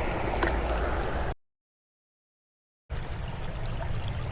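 Creek water running and trickling around the wading angler. It drops out to dead silence for about a second and a half at an edit, then resumes.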